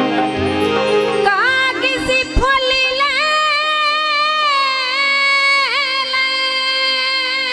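Folk song music: after a short chordal passage, a long, high melodic note comes in about a second in and is held with small ornamental bends over a steady drone.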